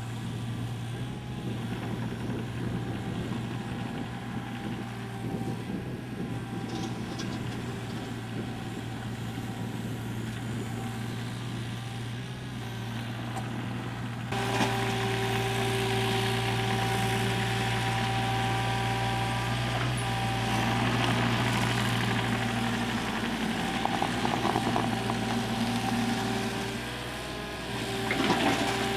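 A heavy machine's engine idling steadily with a low hum. It becomes louder and fuller about halfway through.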